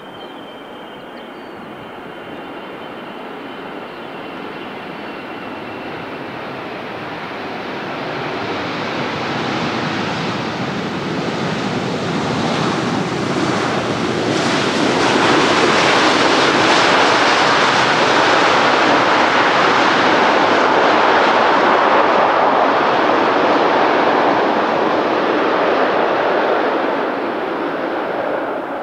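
Heavy jet airliner's engines growing louder as it approaches, starting with a faint high whine and building over about fifteen seconds into a loud steady roar. The roar holds for over ten seconds, then cuts off abruptly at the end.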